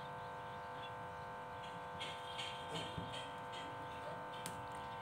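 Pen scratching on paper in a few short strokes about two to three and a half seconds in as a word is finished and underlined, with a light tick near the end, over a faint steady hum.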